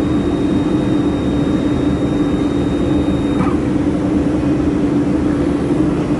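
Steady, loud whir and hum of the laser welding machine's fans and cooling units running, with a thin high whine that stops about halfway through.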